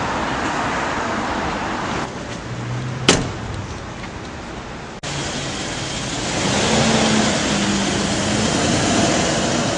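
Street and car noise, with a single sharp thud about three seconds in as the SUV's door shuts. After an abrupt cut, a car engine runs and grows louder, with a low steady tone.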